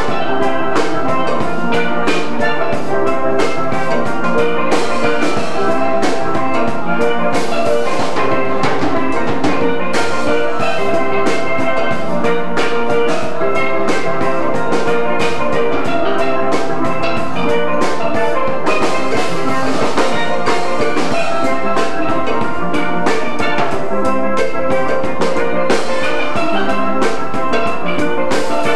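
Steel band music: steel pans playing a busy melody over a steady drum beat.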